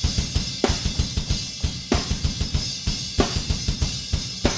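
Drum kit playing back a rock beat: busy kick drum thumps under a snare hit about every second and a quarter, with a steady wash of hi-hat and cymbals.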